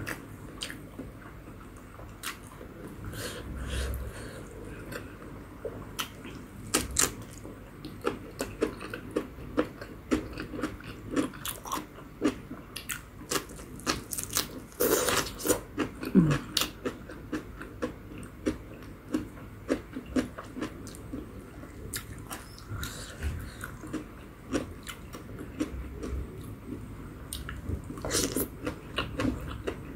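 Close-miked eating sounds: napa cabbage leaves and spicy instant ramen noodles bitten and chewed, with many small crisp crunches and wet mouth clicks. Near the end there is a louder run as noodles are slurped and chewed.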